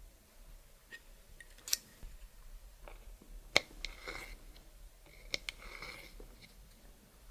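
Hands working clear slime: three sharp clicks and short, sticky crackling stretches.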